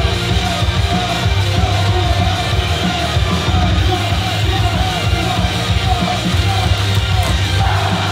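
Loud live rock-style pop song with a woman singing the melody into a microphone, heard from the crowd.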